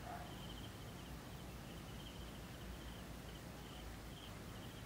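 Quiet outdoor ambience: a low rumble with short, high chirps repeating about twice a second, from insects or birds nearby.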